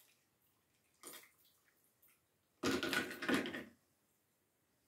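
Orange juice and tequila poured from a stainless steel cocktail shaker into a glass of ice, unstrained, splashing in two bursts: a short one about a second in and a longer one around three seconds in.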